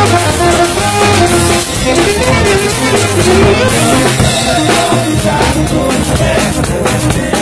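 Loud live band music: melody lines played over a steady drum beat.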